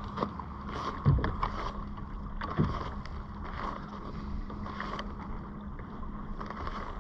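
Wind on the microphone and water lapping against a fishing kayak's hull, over a steady low hum, with two dull knocks about one and two and a half seconds in.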